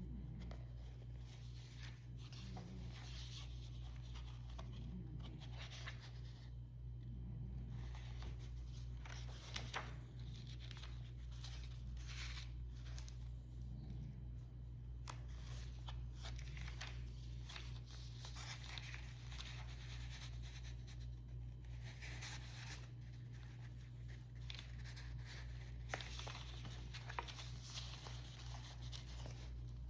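Faint rustling and crinkling of paper, like the pages of a paper notebook being handled and turned, with a few light ticks, over a steady low hum.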